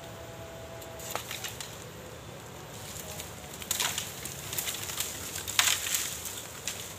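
Dry bamboo leaves, sheaths and twigs rustling and crackling as a bamboo clump is handled and pulled, with two louder bursts of snapping in the second half.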